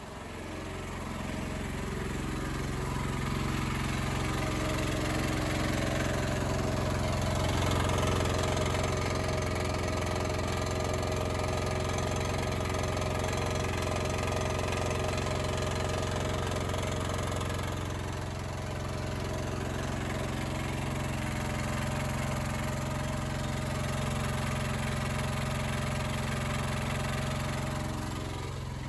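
Honda EX1000 portable suitcase generator's small engine running steadily under the load of an 800-watt oil-filled radiator, labouring, growing louder over the first few seconds as the microphone nears it.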